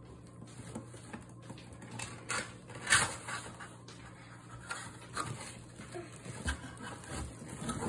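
Cardboard box being handled and its flaps pulled open: scattered scrapes, rustles and light knocks, the loudest about three seconds in.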